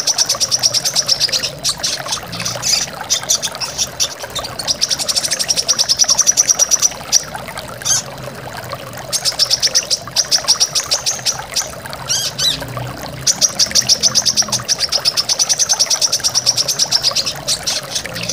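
Brown-throated sunbird (kolibri kelapa) singing rapid high trills in runs of about one to two seconds, repeated several times, over a steady rush of flowing water.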